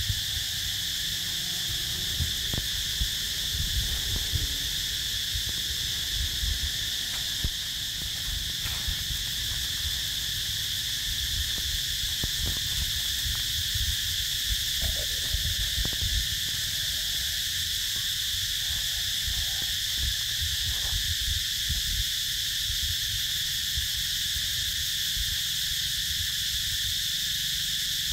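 Insect chorus droning steadily at a high pitch, over a low rumble with many soft thumps.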